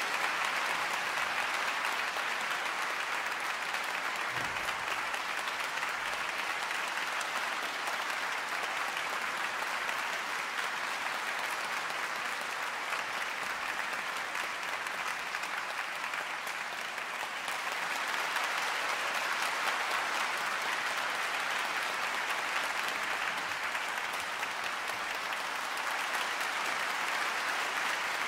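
Concert-hall audience applauding steadily, a dense sustained clapping that eases slightly a little past halfway and then picks up again.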